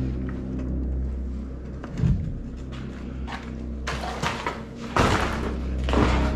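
A door pushed open, with a low thud about two seconds in, then crunching and scraping of footsteps over debris-strewn floor in the last couple of seconds. A low droning music bed runs underneath.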